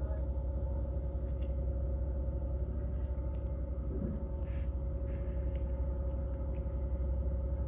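An engine running steadily at low speed, a low even rumble.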